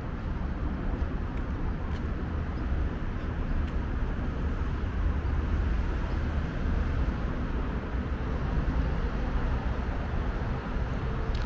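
Steady city road traffic noise, an even wash with a deep low rumble and no single vehicle standing out, and a few faint clicks.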